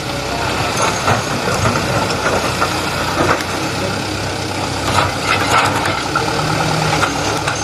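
Heavy diesel engine running steadily, with scattered knocks and clatter over it, typical of an excavator loading sandstone into a dump truck.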